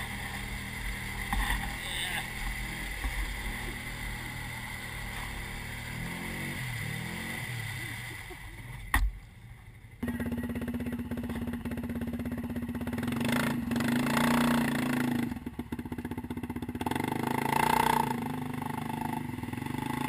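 ATV engine running and revving as the quad is driven through deep mud, wheels spinning and throwing mud. A sharp knock comes just before a sudden change to a louder, steadier engine note that climbs in revs a couple of times.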